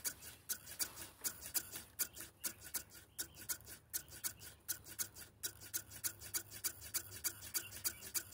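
JR S8477 SS Game Changer digital servos ticking in rapid small steps, about five clicks a second over a low steady hum. They are auto-adjusting during PWM synchronization, the follower servo stepping the swashplate upward a degree at a time to match the master servo.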